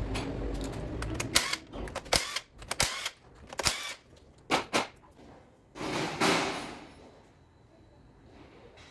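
Irregular metallic clicks and knocks of hand tools and parts being handled on an engine while its spark plugs are removed, then a short hissing rush about six seconds in.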